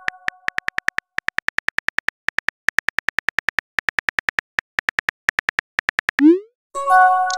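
Smartphone keyboard typing sound effect: fast, even key clicks, about eight a second, with a few brief pauses. Near the end a short rising swoosh and a ringing chime of several notes sound as the text message is sent.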